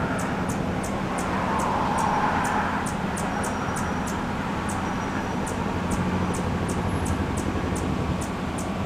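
Anna's hummingbird perched and giving short, sharp, high chip notes at an even pace of about three a second, over steady road-traffic noise that swells briefly about two seconds in.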